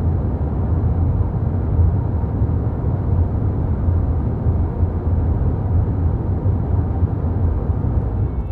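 A car driving, heard as a steady low rumble of road and engine noise.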